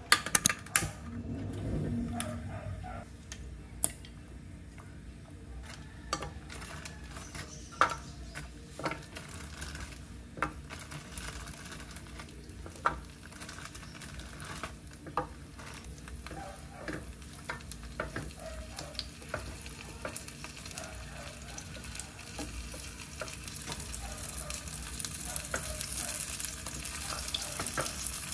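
Breaded nuggets shallow-frying in oil in a pan, a steady sizzle that grows louder near the end. Scattered sharp clicks and light knocks of a utensil against the pan.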